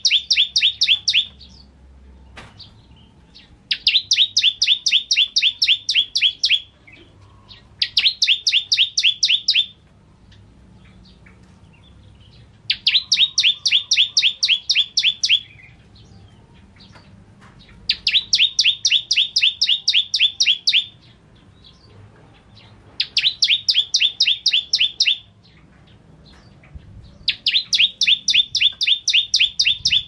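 Bar-winged prinia (ciblek) singing: loud bursts of rapid, sharp, high chirps, several a second, each burst lasting two to three seconds and repeated every few seconds, about seven times.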